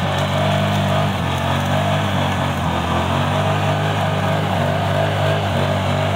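ATV engine running steadily under load while it drives through deep mud, the rider working to get the bogged-down quad out.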